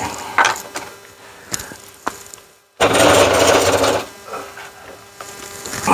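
Handling sounds on a wooden workbench: a few light clicks and knocks as a flux syringe is set down. After a sudden brief drop-out there is about a second of loud rubbing and scraping noise.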